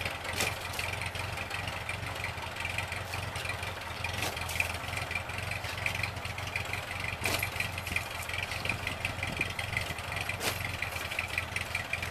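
1948 Ford 8N tractor's four-cylinder flathead engine idling steadily, with a fast light ticking over it. Four sharp knocks, about three seconds apart, come from a shovel digging at the stump.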